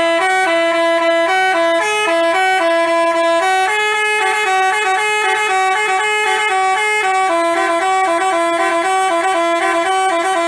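Basuri telolet bus horn playing a quick melody of short horn notes, stepping up and down in pitch without a break, then cutting off abruptly at the end.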